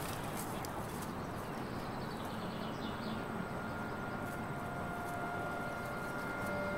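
Steady outdoor ambience, an even soft hiss, with a few long held tones fading in about halfway through.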